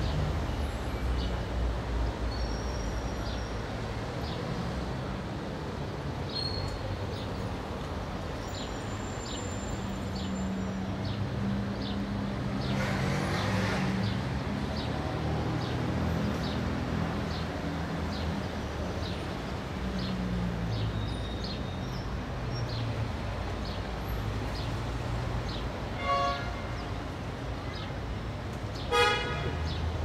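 Indian city street traffic: a steady hum of idling and moving engines, with a vehicle passing about halfway through. Two short horn toots sound near the end, the second louder.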